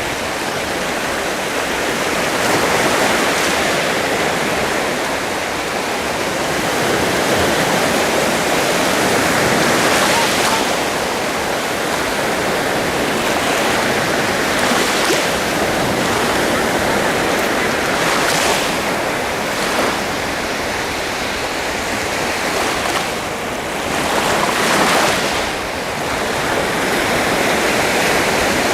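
Sea surf: a steady rushing hiss of waves, swelling now and then as a wave breaks and washes in.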